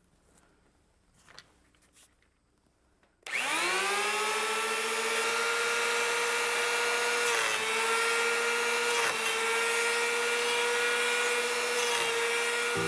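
Electric hand-held power planer switched on about three seconds in, whining up to speed and then running steadily, its pitch dipping briefly twice as it planes a maple table leg.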